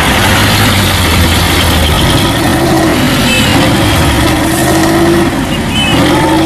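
Heavy diesel truck engines running hard under load, with the engine note climbing in the second half, as a flatbed trailer truck tows a loaded Mitsubishi Fuso truck through deep mud.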